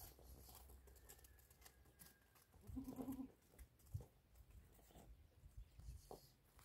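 Faint outdoor sound in which a goat bleats once, briefly, about three seconds in, over a low rumble and a few soft knocks.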